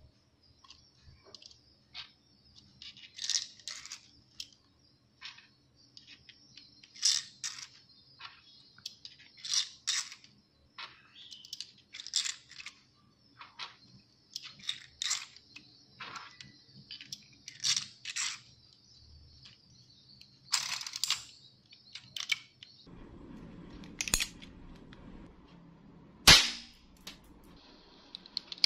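Plastic clicks and clacks of a 3D-printed Colt Single Action Army revolver replica being handled: the hammer cocked, the cylinder turned and the loading gate worked, in irregular clusters. Late on come two sharp, louder snaps, the second the loudest.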